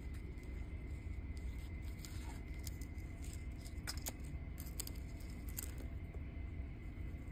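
Metal jewelry chains and pendants being handled, with a few faint clinks and ticks about two, four and five and a half seconds in, over a steady low rumble.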